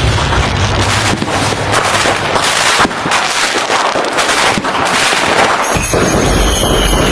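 Fireworks crackling: a dense, rapid run of overlapping bangs and pops. About six seconds in, this gives way to a low rumble with a thin, high, steady whine.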